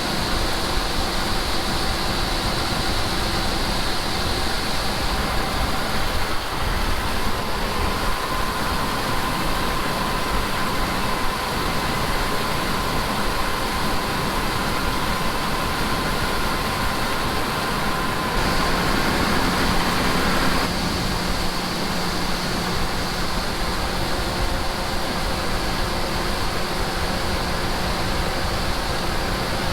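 Farm machinery engine running steadily under constant load, with a steady high whine over the engine noise; the tones change briefly about two-thirds of the way through, then settle back.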